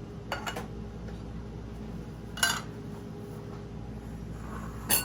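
A few sharp clinks of a metal can and utensil against a bowl as drained canned chunk chicken is emptied into it, the loudest about halfway through with a short ring, over a faint steady hum.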